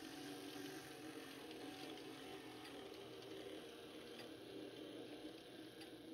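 N-scale model diesel locomotive running, its motor and gears humming steadily, with a few faint clicks from the wheels on the track. The hum grows a little fainter near the end.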